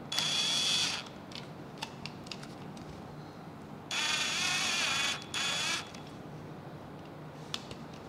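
Cordless drill-driver driving screws to fix a wall switch's mounting frame into the wall box, its motor whining in short bursts: once briefly at the start, then twice in quick succession about four seconds in.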